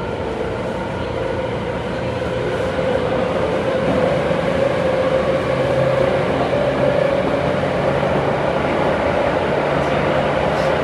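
Tobu 9000 series electric train running at speed through a subway tunnel, heard from inside the passenger car: steady wheel-on-rail running noise with a steady motor hum, growing louder about three seconds in.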